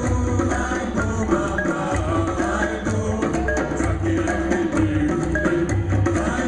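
Music with steady rhythmic drumming over a sustained low tone and a melodic line.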